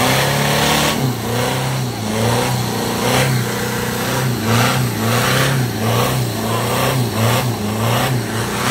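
Off-road vehicle's engine revving up and down over and over, its pitch rising and falling about twice a second, with bursts of noise at each rev, as it works hard through the course.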